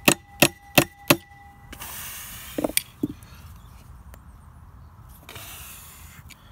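Four quick hammer blows on a chisel wedged into the rusted casing seam of a Flint & Walling jet pump, about three a second, with a ringing metallic tone, the strikes working the stuck pump casing loose. Later come two duller knocks and some scraping.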